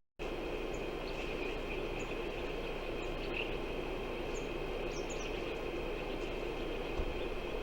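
Outdoor ambience: steady wind noise under a steady high insect hum, with a few short high bird chirps. The sound drops out for a moment at the very start, and there is a soft thump near the end.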